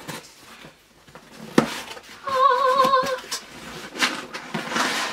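Cardboard shipping box being opened: a sharp knock about a second and a half in, then the cardboard flaps rustling and scraping as they are pulled back near the end. A brief wavering hummed voice sounds for about a second in the middle.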